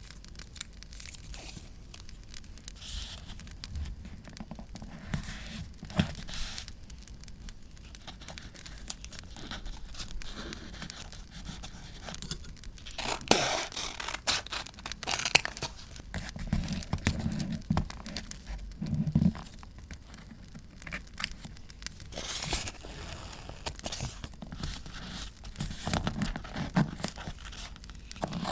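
Paper being handled and torn for journaling: crinkling and tearing of paper, with scattered small clicks and taps and a few louder rustling bursts, the biggest about halfway through.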